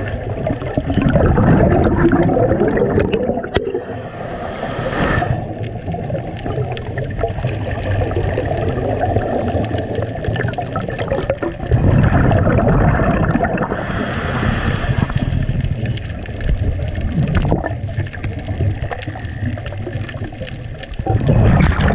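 Scuba regulator breathing heard underwater: long stretches of exhaled bubbles gurgling and rumbling, with a short hiss of inhalation twice, about five seconds in and again near the middle.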